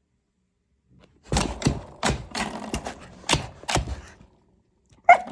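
A dog working at spring door stoppers fixed in a toy box, tugging and mouthing them out of the grid: a run of sharp, irregular clicks and knocks lasting about three seconds, starting about a second in.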